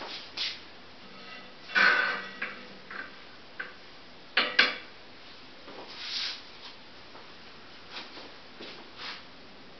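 Wooden screen-printing frames being handled and set in place: a few scattered clattering knocks and scrapes. The loudest come about two seconds in and again about four and a half seconds in.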